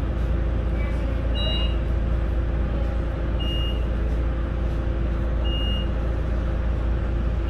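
Light-rail tram standing at a stop, heard from inside: its equipment hums steadily and low, with a short high beep repeating about every two seconds.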